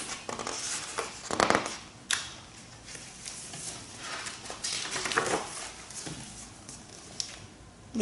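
Pages of a picture book being turned and handled: a few short rustles of paper and light taps.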